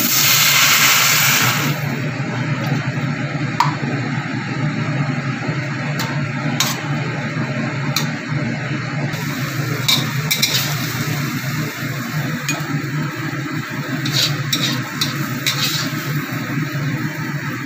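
Stir-frying in a stainless-steel wok. It opens with a loud sizzling hiss for the first couple of seconds as liquid hits the hot pan, then settles into scraping and sharp clinks of a metal spatula against the wok over a steady low hum.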